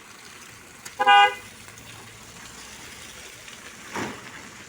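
A vehicle horn sounds one short, loud honk about a second in. A softer, brief noise follows near the end.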